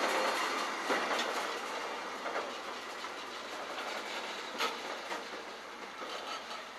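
Railway wagons rolling past close by, wheels clicking over rail joints, then fading away steadily as the end of the train moves off.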